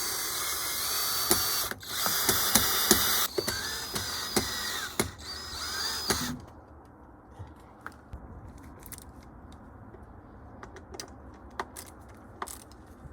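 Power drill-driver whining in several short runs, driving in the screws of a doorbell mount. It stops about six seconds in, followed by a few light clicks of handling.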